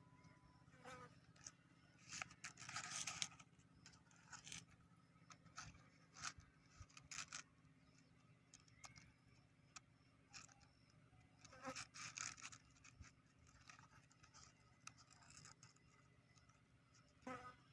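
Faint scattered scraping and clicking from small objects being handled, with a longer scrape about two seconds in and another around twelve seconds, over a low steady hum.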